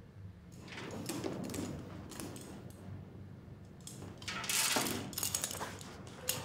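Rustling with irregular light metallic clinks from handcuffs and their shackle chain moving, loudest a little before the end, over a steady low hum.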